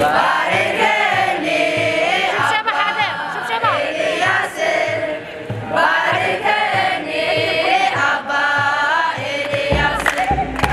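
A choir of Orthodox Tewahedo church singers, mostly men's voices, singing a hymn together over a steady beat about twice a second.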